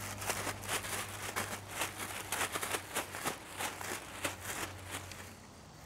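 Faint, irregular crackling, a few light ticks a second over a steady low hum; the crackling dies away shortly before the end.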